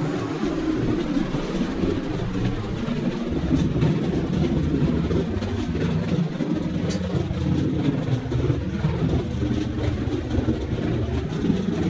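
Steady mechanical rumble of workshop machinery running, with faint ticks scattered through it and a faint high whine dying away in the first couple of seconds.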